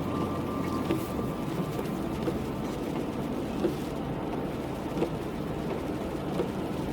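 Steady vehicle running noise, a low rumble and road hiss, with faint scattered ticks.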